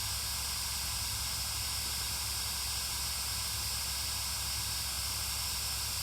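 Steady hiss with a low, even hum underneath and no distinct events: the background noise floor of the recording.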